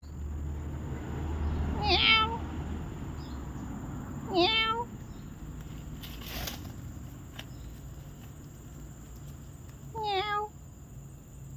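Domestic cat meowing three times, short calls of about half a second each: two close together in the first five seconds and a third near the end.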